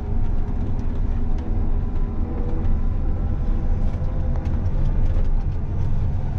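John Deere combine running steadily while shelling corn: a deep, even engine drone with a few faint ticks and rattles over it.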